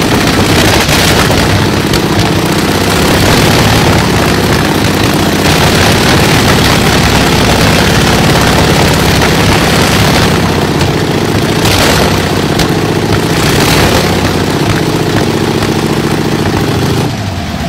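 Shvetsov ASh-62IR nine-cylinder radial aircraft engine running steadily at a loud idle. Near the end its note drops and the sound falls away as the engine winds down.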